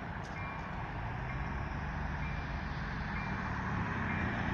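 Grade crossing warning bell chiming about once a second, over a steady low rumble from approaching locomotives and road traffic.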